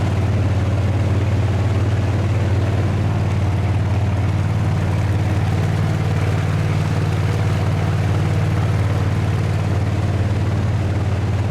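Karakat swamp-buggy engine running at a steady speed on its hand throttle: a constant low drone.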